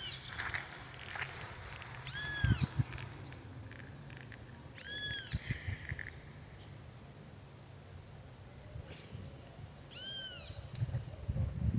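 An animal calling: four single drawn-out notes, each rising then falling in pitch, spaced irregularly, with a few low thumps between them.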